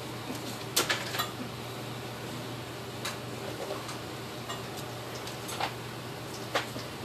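Sharp, scattered clicks and snaps, about five in all and loudest about a second in, as the old stitching of a leather steering wheel cover is picked and cut with a small hand tool, over a steady low hum.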